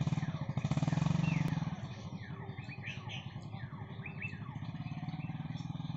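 Motorcycle engine running with a fast, steady throb, loudest about a second in and then settling to a steadier level.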